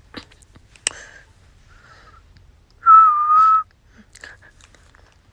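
A person whistling one short, steady note that wavers slightly, about three seconds in, with a fainter whistle just before it and a few soft clicks.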